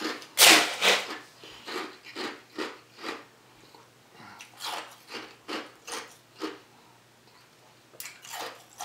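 Crushed ice being crunched between the teeth. The chewing comes in three runs of sharp crunches at about two or three a second, the loudest just after the start, with a pause of about a second between runs.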